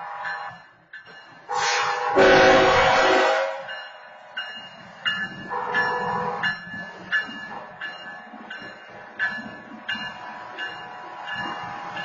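Loud horn blasts at a railroad grade crossing, the loudest about two seconds in and a shorter one around five and a half seconds, with a sharp ticking about twice a second. From about six seconds a BNSF diesel locomotive rumbles low as it rolls through the crossing.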